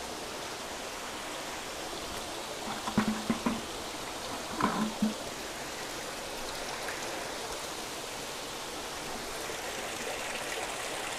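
Steady rush of water running through the fish vats of a recirculating aquaculture system. Two short louder sounds come through it about three and about four and a half seconds in.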